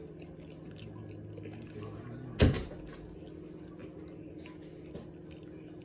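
A door being shut with a single loud thump about two and a half seconds in, over small wet clicks of fingers pulling apart barbecue meat in sauce.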